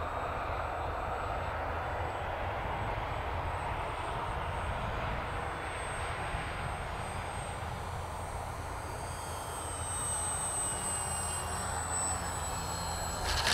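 Electric motor and propeller of a small RC trainer airplane whining as it comes down for a low pass, over a steady rushing background. The high whine grows louder past the middle, with its tones falling in pitch.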